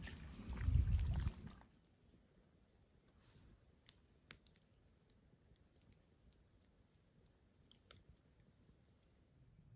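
Wind buffeting the microphone over lapping lake water for about the first second and a half, the loudest part. Then a smouldering campfire's embers ticking and crackling faintly, with a few sharp pops.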